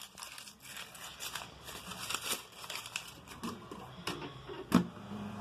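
A sheet of paper crinkling and rustling in irregular small crackles as it is handled, with one sharp click near the end.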